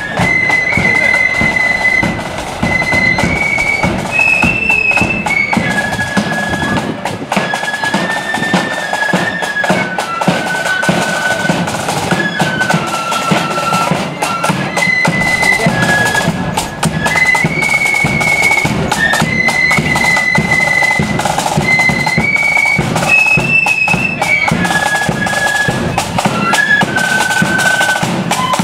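Marching flute band playing a tune: a high flute melody that steps from note to note, over the steady beat of side drums and bass drum.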